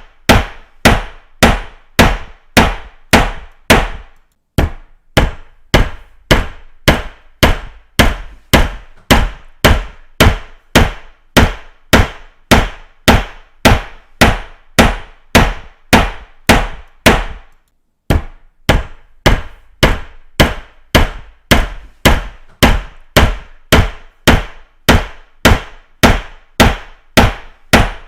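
A hammer striking in a steady rhythm, about two blows a second, each blow sharp with a short ring. The rhythm breaks off briefly about four seconds in and again near eighteen seconds.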